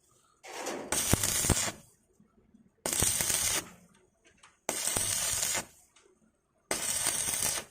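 Electric stick-welding arc crackling in four separate runs of about a second each, roughly every two seconds, as the arc is struck and broken again and again.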